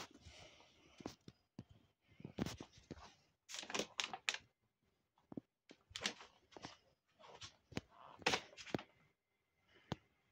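Irregular soft knocks, thuds and clicks, roughly two a second and unevenly spaced, from objects being handled and bumped in a small room.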